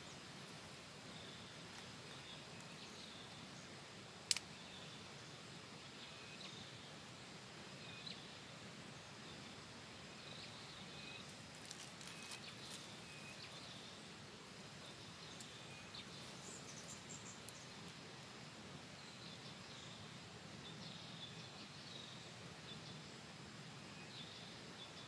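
Faint outdoor ambience with short high chirps repeating every second or two. A sharp click sounds about four seconds in, and a few smaller clicks come around the middle.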